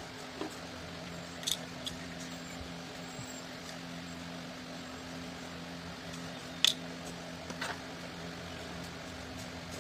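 A few light clicks and rustles of hands handling wires and parts in an opened speaker cabinet, the sharpest click about two-thirds of the way through, over a steady low hum.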